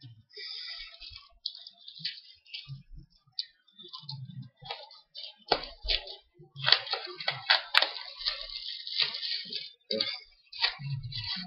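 Plastic packaging of a DVD set crinkling and crackling as it is worked open by hand, with irregular clicks and rustles. The crackling gets denser and louder a little past halfway.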